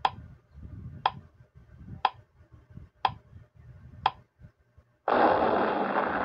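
Countdown-timer sound effect: a clock ticking once a second, five ticks, then about five seconds in a louder, hissing sound effect of about two seconds, the end-of-countdown cue.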